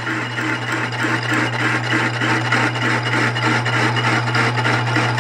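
Hole saw spinning in a South Bend 9-inch lathe and power-fed into a metal tube, rasping in a fast, even rhythm over the steady hum of the running lathe. The saw is finishing a tube notch, just breaking through the wall.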